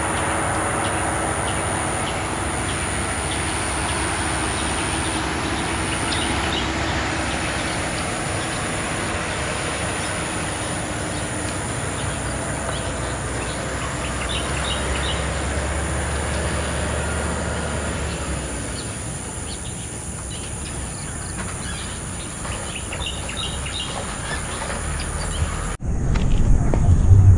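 Birds chirping in short bursts over a steady outdoor hiss. Near the end the sound cuts abruptly to a louder low rumble with knocks.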